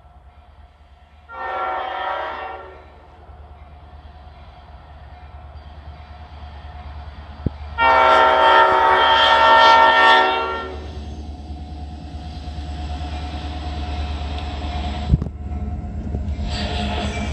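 Diesel freight locomotive's air horn blowing as the train approaches: a blast of about a second and a half, then a louder, longer blast of about two and a half seconds. Between and after the blasts the locomotive's low engine rumble builds as it comes near and passes, with the freight cars rolling by at the end.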